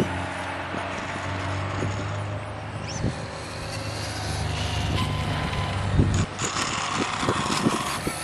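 Losi Promoto MX 1/4-scale electric RC dirt bike's motor whining and rising in pitch as the throttle opens while it rides across asphalt, with low thumps of wind buffeting the microphone.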